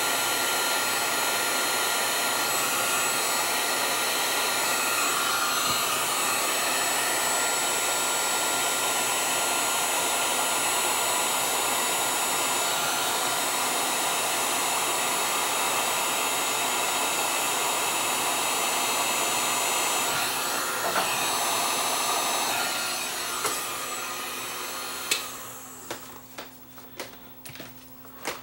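Heat gun blowing hot air steadily onto a smartphone's processor chip to reflow its solder. About three-quarters of the way through it shuts off and winds down, and a few sharp clicks and taps follow near the end.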